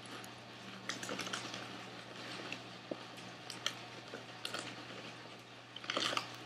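Faint, scattered clicks and crackles of baked barbecue potato chips being chewed and a small plastic dipping-sauce cup being handled, with a louder crackle near the end.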